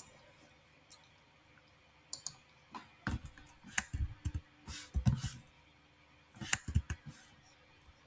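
Computer keyboard being typed on: an uneven run of key clicks, starting about two seconds in and stopping about a second before the end.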